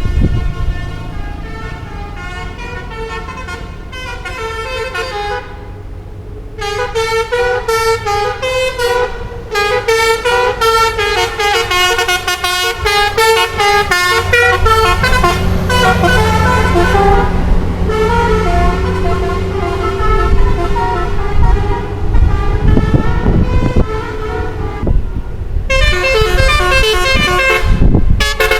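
Bus telolet horn: a multi-tone air horn on a bus playing quick runs of changing notes, repeated with short breaks, while a bus engine runs underneath in the second half.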